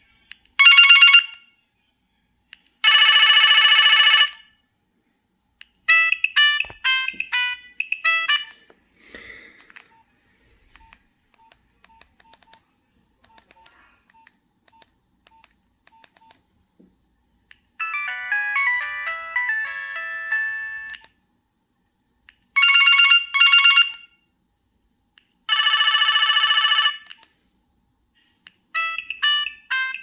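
Nokia 3590's preloaded monophonic ringtones previewed one after another: short electronic ringing trills, long steady tones and quick runs of melody notes, each stopping as the next is chosen. Faint short beeps come in the quiet stretch near the middle.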